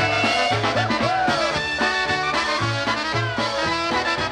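Polka music recording: a band playing with a steady, regularly repeating bass beat under melody instruments.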